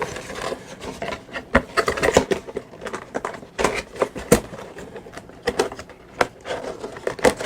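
Handling noise from a lavalier microphone and its cable being handled: irregular rustling with sharp clicks and knocks.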